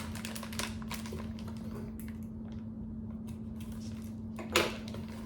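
Light clicks and rustles of a knife's box and packaging being handled, with a brief louder rustle about four and a half seconds in. A steady low hum runs underneath.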